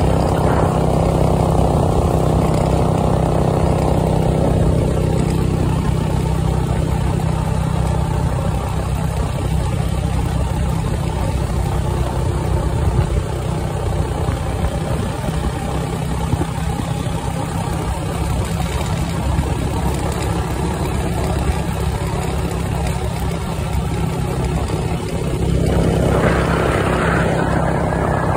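Go-kart engine running under throttle while riding on a gravel road, its note dropping away about four seconds in and picking up again near the end. A steady low drone and a rushing road and wind noise carry on throughout.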